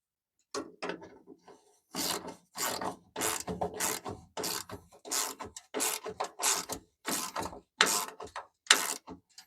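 Hand ratchet wrench working a bolt, swung back and forth in a run of ratcheting strokes, about two a second, after a few lighter clicks at the start.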